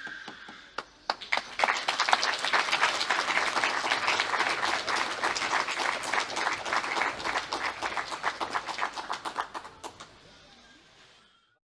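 The last chord of an 1888 Ernst Kaps grand piano dies away, then an audience applauds. The clapping starts about a second in, holds steady, and thins out and fades near the end.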